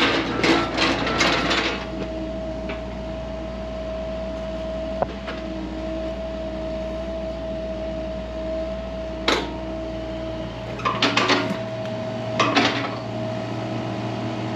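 Work machinery running steadily with a constant whine, a deep rumble underneath that stops about 11 seconds in. Clatters and knocks come over it near the start, once about 9 seconds in, and a few times toward the end.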